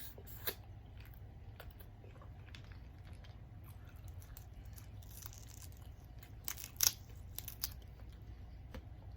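Close-up eating sounds from a seafood boil: chewing with scattered sharp cracks and tearing as the seafood is pulled apart. A cluster of the loudest cracks comes about seven seconds in, over a low steady hum.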